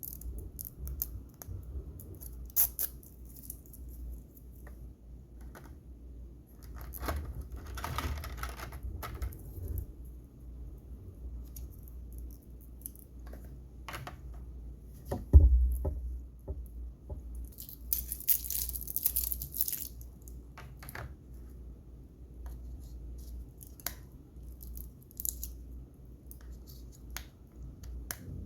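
Handling of a streaming-player box and its contents: scattered clicks and rustles of packaging, with a crinkly burst of plastic or paper rustling later on and one sharp thump about halfway through.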